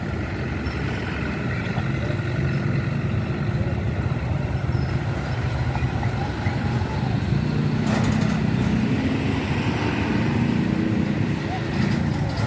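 Heavy road traffic passing: trucks or buses running by with a steady diesel engine hum that grows louder about halfway through.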